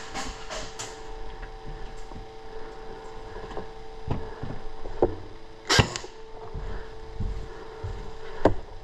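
A few sharp snaps or knocks over a steady electrical hum, the loudest about six seconds in and another near the end.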